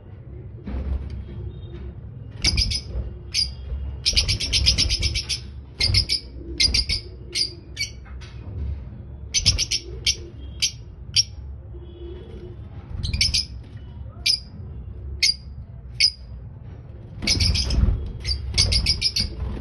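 Lovebirds chirping: clusters of shrill, rapid chirps come and go, with short quiet gaps between them, over a low rumble.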